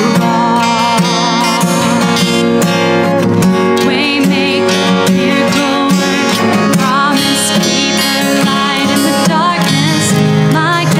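A worship song sung by a voice with vibrato over strummed acoustic guitar.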